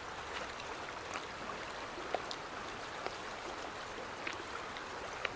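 Creek water running steadily over rocks, with small scattered clicks and ticks over it.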